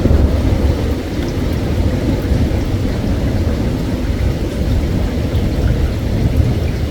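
Long rolling thunder rumbling low and steadily, over the hiss of falling rain.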